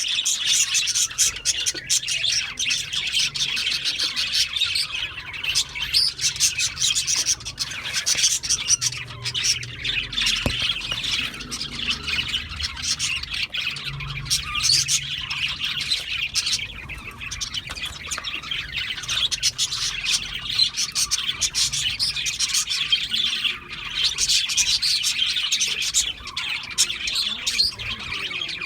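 Budgerigars chattering and chirping continuously, many calls overlapping into a dense, unbroken warble.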